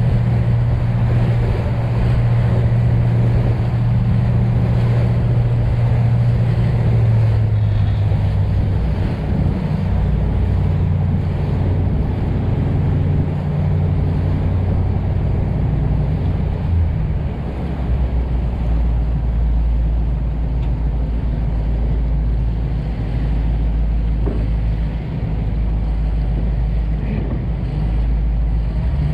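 Motor yacht underway: its engine drones steadily under wind buffeting the microphone and water rushing past the hull. The drone shifts to a deeper tone about seventeen seconds in.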